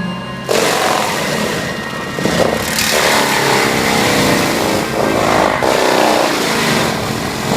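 DENIS CIMAF DAF-180D forestry mulcher on a CAT 289D compact track loader, its rotor shredding cabbage palm and palmetto: a loud, coarse grinding over the running diesel engine. It cuts in suddenly about half a second in.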